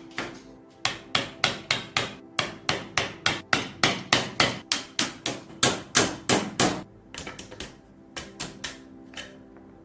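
Hammer blows struck in quick succession, about four a second, then a few lighter taps and three last blows near the end.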